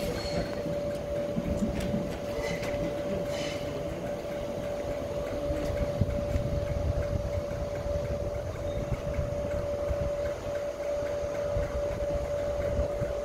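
Class 345 electric train at the platform, giving off a steady humming tone over a low rumble.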